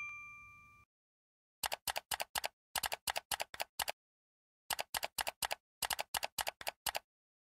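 Keyboard typing sound effect: two quick runs of key clicks, about a dozen each, separated by a short pause. A chime fades out in the first second.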